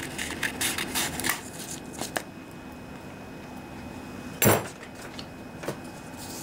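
Round-tipped scissors snipping a sheet of 1500-grit sandpaper, the paper crackling, in the first two seconds; then quiet, broken by one sharp clunk a little after the middle and a faint tap after it.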